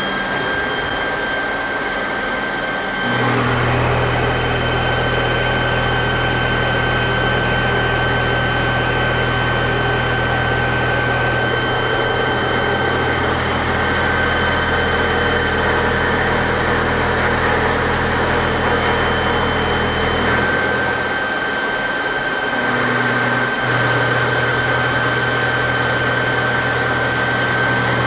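Mazak Quick Turn 10N CNC lathe running a live-tool milling cycle: a steady high-pitched whine with overtones from the spinning live tool. A low machine hum joins about three seconds in, drops out for a few seconds near the twenty-second mark, then comes back.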